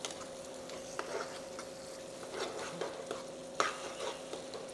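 Steel spatula stirring and scraping mutton and thick masala around a frying pan, over a light sizzle of frying. Irregular scrapes and taps against the pan come through, the loudest about three and a half seconds in, with a faint steady hum underneath.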